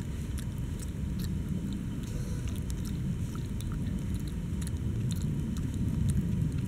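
Baby macaque chewing and nibbling on a dry leaf, heard as irregular small clicks, over a steady low rumble.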